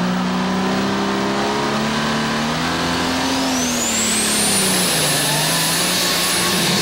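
Multi-turbocharged International Harvester diesel super stock pulling tractor running hard under load during a pull. Its engine note rises a little about halfway through and then sags, while a high turbocharger whine climbs steeply and holds near the end.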